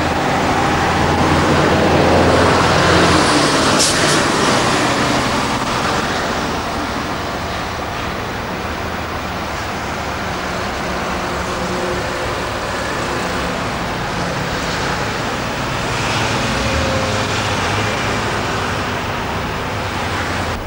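Heavy diesel engines of a hydraulic excavator and dump trucks running steadily, mixed with road traffic. Louder in the first few seconds, with a short sharp knock about four seconds in.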